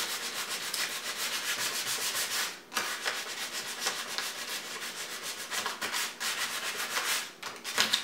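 240-grit sandpaper rubbed by hand over a microwave's spray-painted door in quick back-and-forth strokes, about five a second, pausing briefly twice. It is taking off the old red paint layer so new spray paint will stick.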